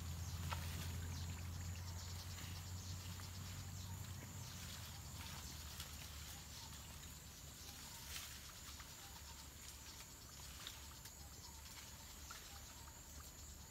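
Faint forest ambience: a steady high-pitched insect drone, with a low rumble underneath that fades after about four seconds.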